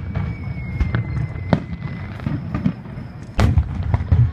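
Aerial fireworks bursting in quick succession: a run of sharp bangs over a continuous low rumble, with the loudest bursts about a second and a half in and again near the end.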